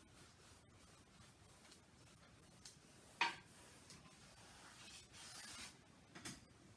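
A paintbrush stroking lightly over a canvas, a faint scratchy rub about five seconds in, with a sharp click about three seconds in and a softer tap near the end.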